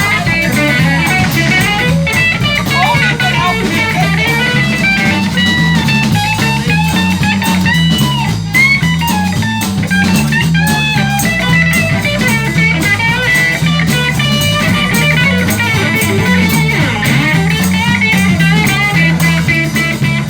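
A live blues-rock band playing an instrumental break between verses. A lead guitar plays a solo with bent, gliding notes over a walking bass line and drums.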